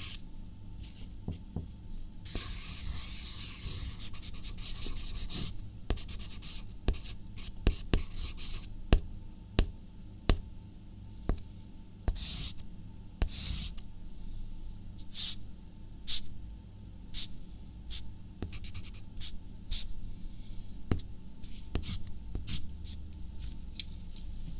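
Handwriting on paper: scratching pen strokes, one long stroke a couple of seconds in, then many short, irregular strokes and light taps, over a steady low hum.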